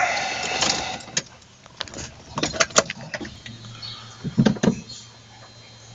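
A series of sharp clicks and knocks, with a low steady hum setting in about four seconds in, just before the engine is cranked.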